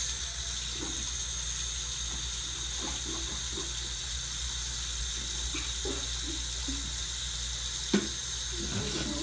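Bathroom sink faucet running steadily, water splashing into the basin as a face is rinsed under the stream, with one sharp sound near the end.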